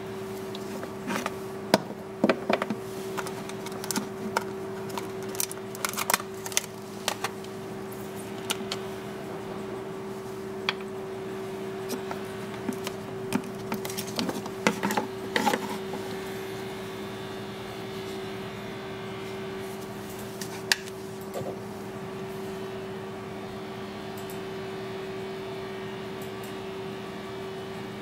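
Scattered light clicks and taps from handling a metal dental contra-angle handpiece and its clear plastic case, bunched in the first half with one more later, over a steady low hum.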